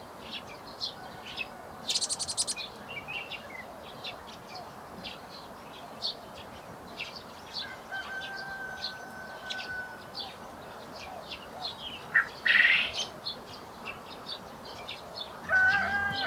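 Garden birds chirping: many short high calls, a fast trill about two seconds in and a louder burst of calls about three quarters of the way through. Soft background music comes in just before the end.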